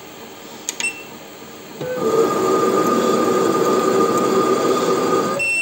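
Weisan mini metal lathe with an electronic leadscrew: a short beep from the controller, then about two seconds in a steady whine as the motor-driven leadscrew feeds the threading tool along the turning workpiece on a thread-cutting pass. It stops near the end with another short beep.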